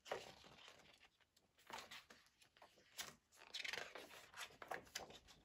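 Faint paper rustling from the large pages of a souvenir theatre program being handled and turned, in several short, separate rustles.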